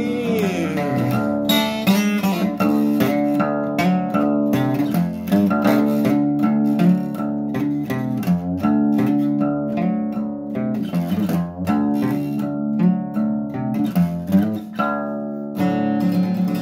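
Acoustic guitar strummed alone in a steady run of chords. A held sung note trails off in the first second.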